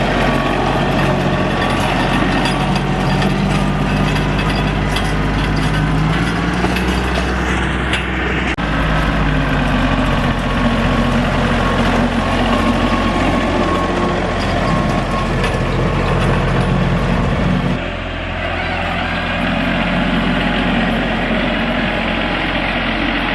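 Tractor engine running steadily while plowing snow off a driveway; its note shifts about a third of the way in and again near the end.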